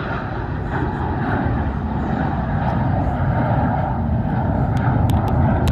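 Jet airliner's engines heard passing: a loud, steady rumbling jet noise that grows slowly louder.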